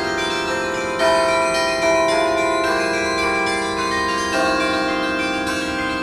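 The Millennium Carillon's tower bells played as music: a slow melody of struck bells, with new notes about a second apart and earlier notes still ringing under them.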